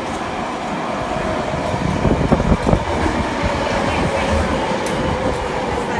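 Subway train running past the platform: a steady rumble with a motor whine that slowly falls in pitch near the end, and a few heavy knocks about two to three seconds in.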